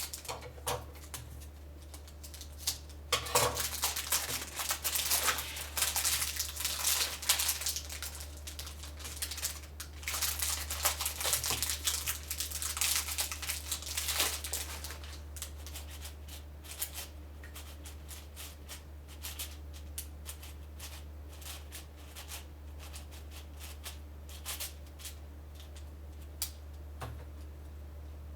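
Plastic clicking and rattling as a new 6x6 speed cube is handled and turned: two dense stretches of rapid clicks, then scattered single clicks.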